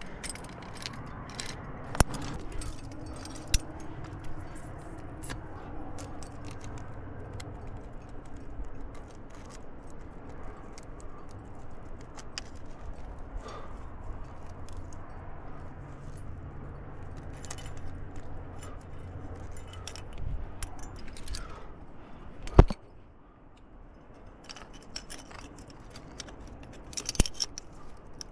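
Carabiners and camming devices on a climber's harness rack clinking and jingling as he moves, with one sharper knock about two-thirds of the way through.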